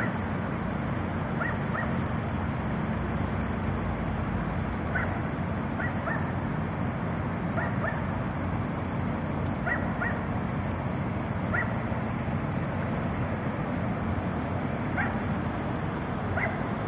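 Steady rush of floodwater running down a street, with a dog yipping in short high calls, often two at a time, every second or two.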